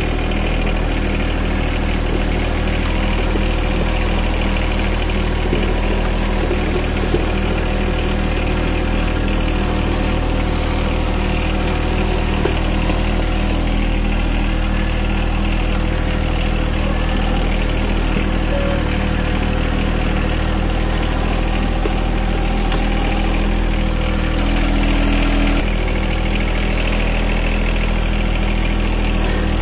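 Engine of a loading machine running steadily at idle, with a few faint knocks over it.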